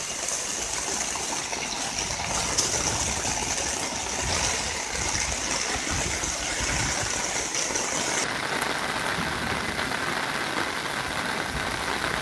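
Steady rush of rainwater runoff flowing down a street in heavy rain. About eight seconds in, the sound changes abruptly to a different steady wash of rain on a wet street.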